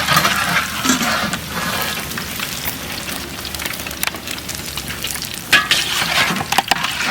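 Chicken pakoda fritters deep-frying in hot oil, a steady sizzle, with scattered sharp clicks that come more often in the second half.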